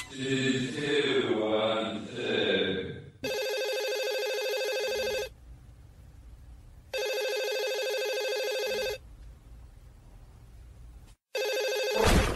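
A telephone ringing: two steady rings of about two seconds each with a pause between, and a third ring starting near the end. The rings follow about three seconds of a voice at the start.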